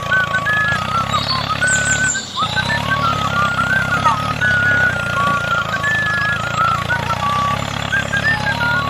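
Tractor engine running steadily, with a brief drop about two seconds in. A high wavering tone that steps up and down like a tune plays over it.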